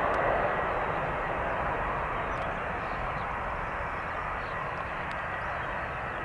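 Boeing 767-300ER's Pratt & Whitney PW4000 turbofan engines running as the airliner lands: a steady rushing jet noise with a thin high whine, slowly fading as the aircraft moves away.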